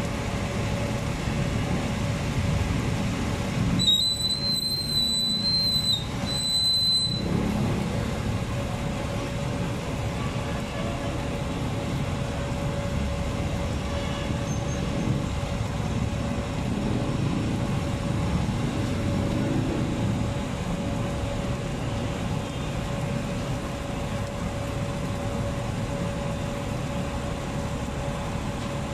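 Steady street background noise with a low traffic-like rumble and a faint steady hum. About four seconds in, a high whistle-like tone sounds for roughly three seconds with a short break.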